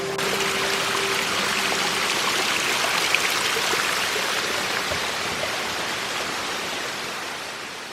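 Ingalalla Falls, a waterfall, running water falling and splashing in a steady, even hiss. The sound fades away near the end.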